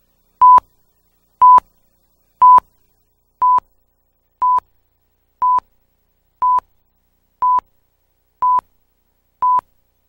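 Countdown beeps of a TV tape leader: ten short, identical electronic beeps, one a second, the first three louder than the rest, counting down to the start of the programme.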